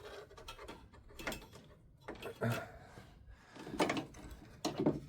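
A few short knocks and scrapes from tools and small parts being handled, coming one at a time about a second apart.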